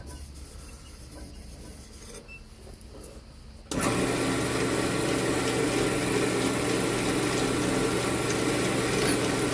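Wood lathe motor switching on about four seconds in, then running steadily with an even hum.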